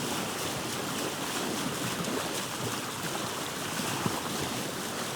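Steady rushing hiss of wind and water.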